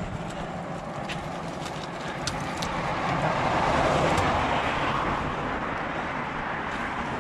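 Road traffic noise, a passing vehicle swelling louder about three to five seconds in, with a few light clicks.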